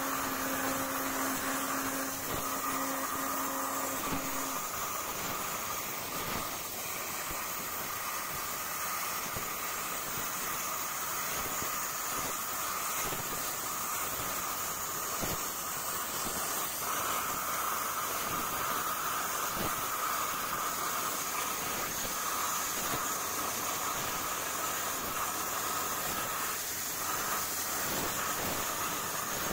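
Hypertherm Powermax85 plasma torch with FineCut consumables at 45 amps cutting 10-gauge steel plate: a steady hiss from the plasma arc and its air jet, with a few brief crackles.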